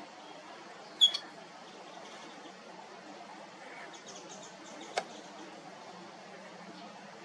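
Asian small-clawed otter giving a short, high-pitched squeak about a second in, a smaller one right after it. A single sharp click comes about five seconds in, over a low steady background murmur.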